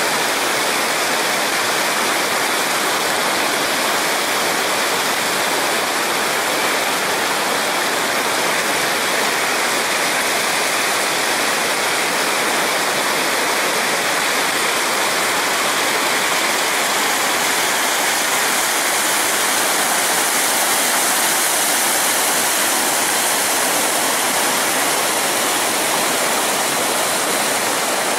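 Whitewater rapids and low cascades of a river in high flow, rushing steadily.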